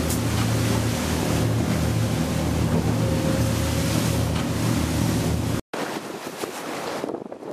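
Motorboat engines running hard with a steady low drone, under wind buffeting the microphone and rushing water from the wake. About five and a half seconds in it cuts off abruptly to quieter wind noise and choppy water with no engine drone.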